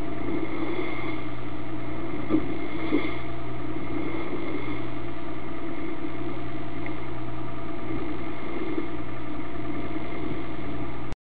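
Motor yacht's engine droning steadily, with a couple of small knocks a few seconds in; the sound cuts off suddenly near the end.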